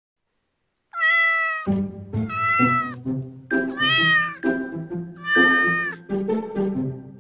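Kitten meowing four times in long, high-pitched meows, the first about a second in, over light background music that starts after the first meow.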